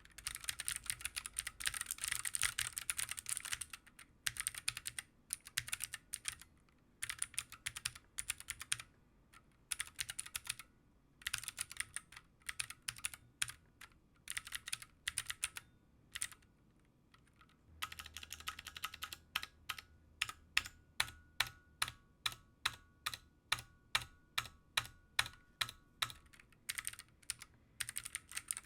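Keychron Q1 aluminium-framed mechanical keyboard with Gateron Phantom Blue clicky switches being typed on: bursts of fast, clicky keystrokes with short pauses. Past the middle, single keys are struck evenly, about twice a second.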